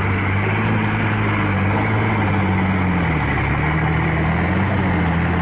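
A steady engine-like motor hum, low and even, with its pitch wavering slightly around the middle.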